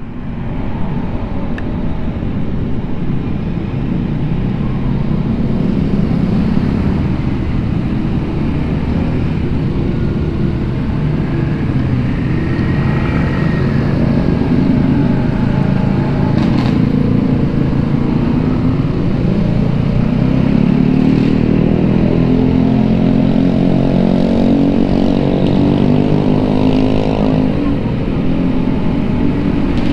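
A Vespa Sprint S scooter's single-cylinder four-stroke engine running on the move, with road and traffic noise. About twenty seconds in, its pitch climbs steadily for several seconds as the scooter accelerates.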